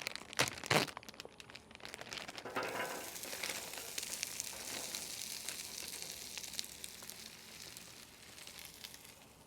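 Plastic bag of frozen Ore-Ida potato crowns crinkling and tearing as it is pulled open, then a steady sizzling hiss as the crowns go onto the hot oiled Blackstone griddle, fading slightly near the end.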